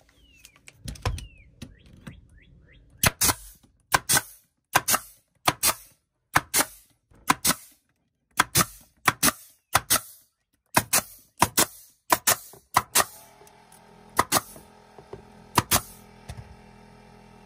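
Pneumatic 18-gauge narrow crown stapler firing 1¼-inch staples through carpet into a plywood floor: a long run of sharp shots, many in quick pairs, starting about three seconds in and thinning out near the end.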